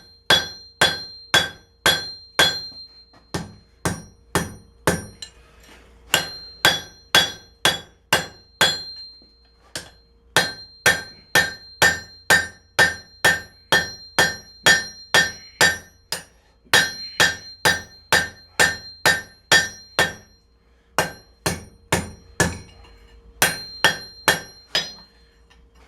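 Hand hammer striking the hot steel of a wrench on an anvil, drawing out the bevels of a knife blade: steady blows about two a second, in runs with short pauses, each blow ringing.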